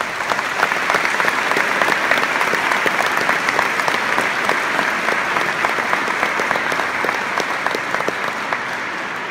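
Audience applauding: many people clapping at once, starting abruptly and easing off slightly near the end.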